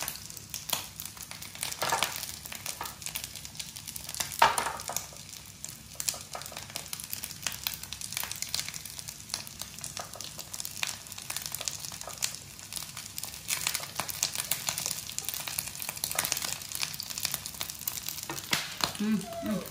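Corn kernels frying in oil in a nonstick pan: a steady sizzle with dense crackling pops. There is a sharper tap about four seconds in.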